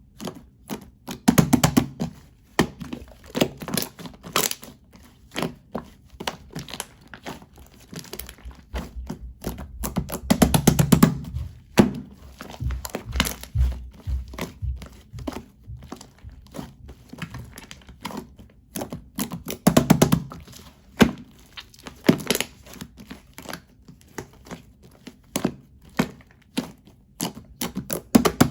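Slime being squeezed, stretched and poked by hand. It gives a dense run of sticky clicks and crackles, with a few heavier squelching thuds when it is pressed or folded.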